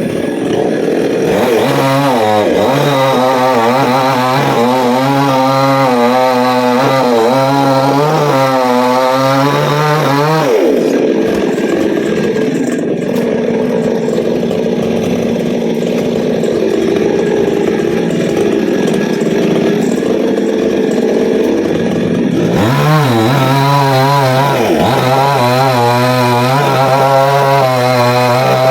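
Chainsaw running under load as it cuts a coconut palm, its engine pitch wavering up and down. For about twelve seconds in the middle, the engine tone gives way to a duller, noisier sound.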